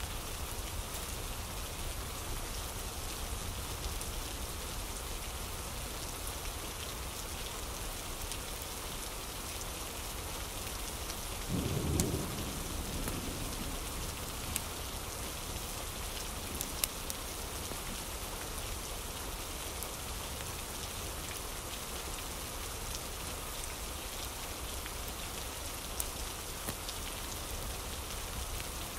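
Steady rain falling, with a brief low rumble of thunder about twelve seconds in.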